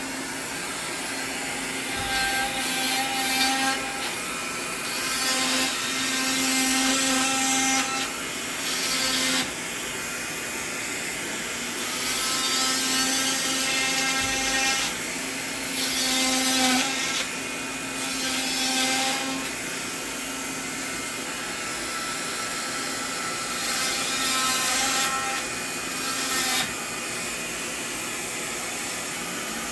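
Electric cast saw cutting off an arm cast: a steady motor hum that gets louder in passes of a few seconds, several times over, as the blade works along the cast.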